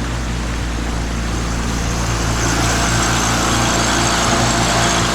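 Johnboat's outboard motor running steadily at slow, no-wake speed, a low even drone.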